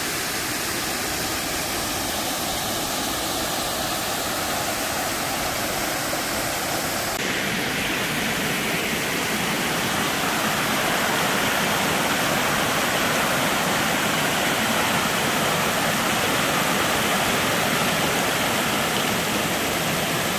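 Water rushing over rocks and pouring over a small waterfall in a steady rush. About seven seconds in it changes abruptly to a brighter, slightly louder pour.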